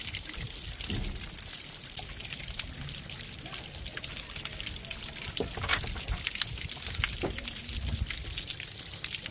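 Rain falling steadily: a continuous fine hiss thick with scattered drips and taps, a few louder ones past the middle.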